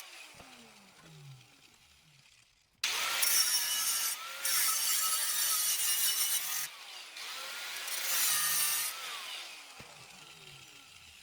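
Electric power tool cutting through exhaust pipe. A motor winds down with a falling whine at the start; about three seconds in the tool bites again and cuts with a loud hiss for about six seconds, easing briefly partway, then winds down again with a falling whine.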